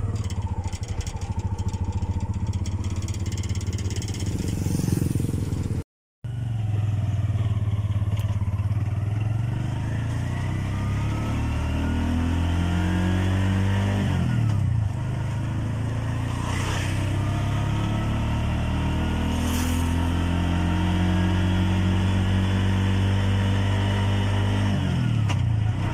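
Bajaj three-wheeler's engine running as it drives along the road. Its pitch climbs and drops back a few times as it speeds up and changes gear. The sound cuts out for a moment about six seconds in.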